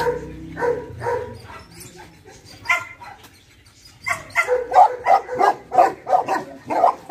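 A dog barking: a few barks, a short lull, then from about four seconds in a fast run of barks, three or four a second.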